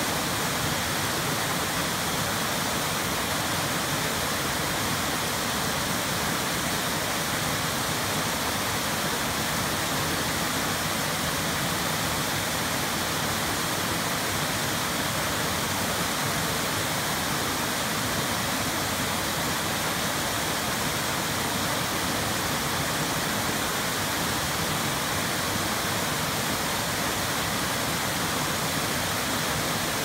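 Small waterfall on a mountain stream, water cascading over rock ledges and plunging into a pool: a steady, even rush.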